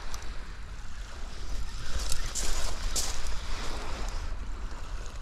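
Fixed-spool reel being wound slowly while reeling in a hooked fish, under a steady rumble and hiss of wind on the microphone, with a few brighter rustles about two to three seconds in.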